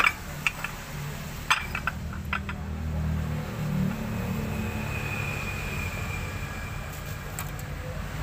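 Sharp metal clinks of steel press sleeves and an aluminium supercharger housing being set down and shifted, mostly in the first couple of seconds and once more near the end, over a steady low motor drone that swells about three seconds in.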